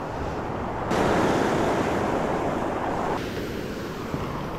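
Surf breaking and washing over a shingle beach, with wind on the microphone. It swells suddenly about a second in and drops back about two seconds later.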